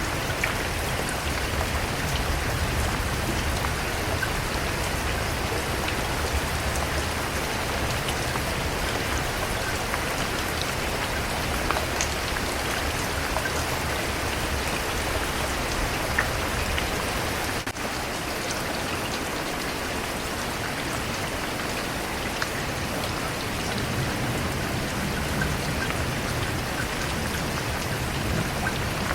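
Steady rain falling, a dense even hiss with individual drops ticking on a surface. A low rumble underneath fades partway through and comes back near the end.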